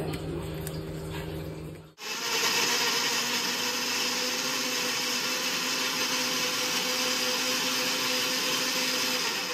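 Electric mixer grinder motor running steadily, its steel jar grinding tomatoes, green chillies, coriander, garlic and ginger into a wet paste. It starts about two seconds in and runs with an even drone until it stops near the end.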